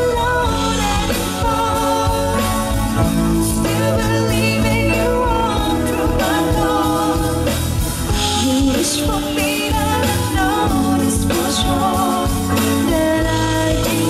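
A singer singing a pop song over full instrumental backing with a strong bass, amplified through a PA.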